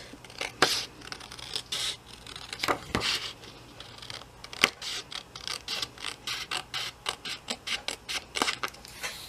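Scissors snipping through a printed paper template in a run of short clicks, coming quicker and more evenly, about three a second, in the second half.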